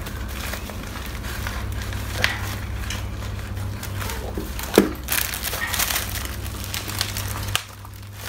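Black plastic parcel wrapping and packing tape crinkling and crackling as it is handled and cut at with scissors, in irregular snaps, the sharpest about five seconds in. A steady low hum runs underneath and drops away near the end.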